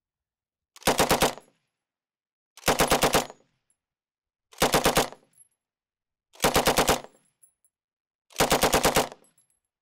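Bren light machine gun firing five short bursts of about five rounds each, evenly spaced about two seconds apart.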